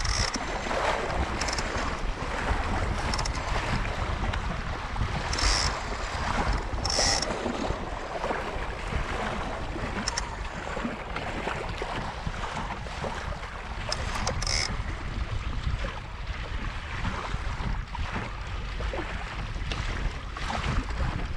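Water rushing and splashing along the hull of a Laser Pico sailing dinghy under way, mixed with wind buffeting the microphone. A few brief, sharper hissing bursts stand out, about five, seven and fourteen seconds in.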